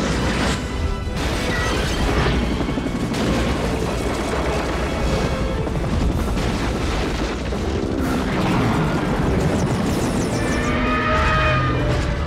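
Film action soundtrack: dramatic score mixed with heavy booming effects.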